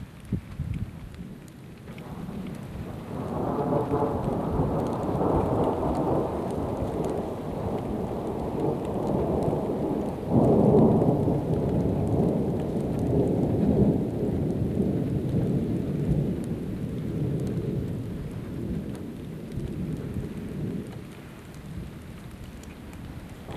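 Thunder rumbling long and low over rain. It swells about three seconds in, peaks with a louder crack-like surge about ten seconds in, and slowly dies away.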